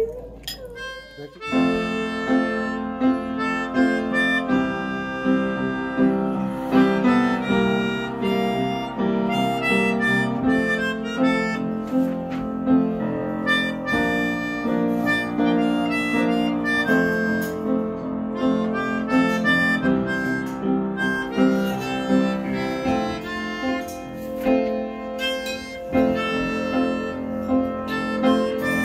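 Melodica and upright piano playing a tune together; the music starts about a second and a half in.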